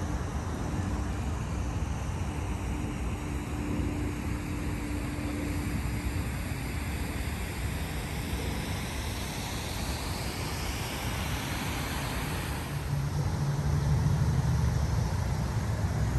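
Motor vehicle noise, a steady rumble that grows louder about two-thirds of the way through.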